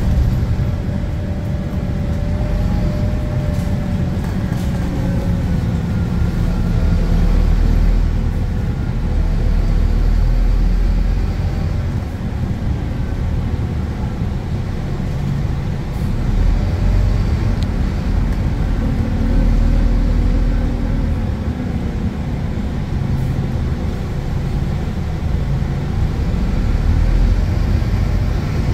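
Scania K280UB bus's five-cylinder diesel engine and ZF automatic gearbox under way, heard from inside the passenger saloon: a low engine rumble that swells and eases several times as the bus speeds up and changes gear, with a faint gear whine gliding up and down in pitch.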